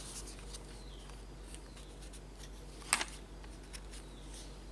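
Faint handling sounds of a handheld radio's parts, small clicks and rustles over a low steady hum, with one sharp click about three seconds in.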